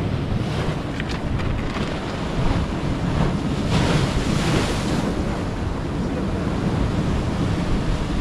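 Ocean surf washing and breaking against a rocky shore, with one wave crashing into spray about four seconds in; wind buffets the microphone throughout.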